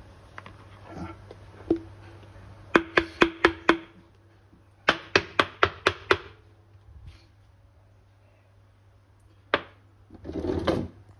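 Kitchenware being handled: two quick runs of sharp clicks and taps, the second as a snap-on plastic lid is pressed around the rim of a glass bowl, then a single knock and a short scraping slide near the end.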